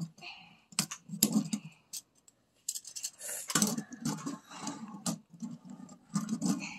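Mini chrome wire shopping cart being handled and assembled: the wire frame clinks and rattles, with several sharp clicks as the red plastic handle is worked into place.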